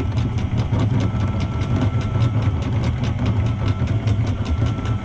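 Sailboat's inboard diesel running at idle while the anchor chain is hauled in, with a steady rapid clicking at about six a second over a low engine hum.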